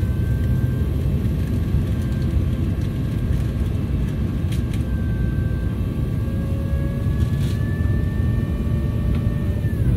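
An airliner's flap drive whines over the steady low roar of the cabin while the trailing-edge flaps extend. Its pitch rises slightly, then falls away sharply near the end as the drive stops.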